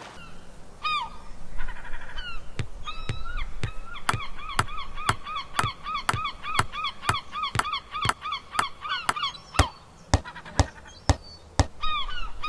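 Short honking calls, rising and falling in pitch, come a few at first and then in a rapid run of about four a second for several seconds. Sharp clicks sound about twice a second underneath.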